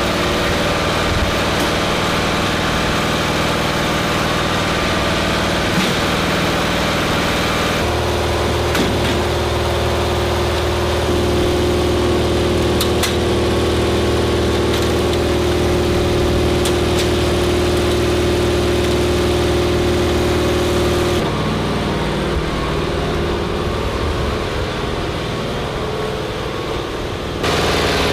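An engine idling steadily. Its tone shifts abruptly to a new steady pitch about eight seconds in and twice more later on.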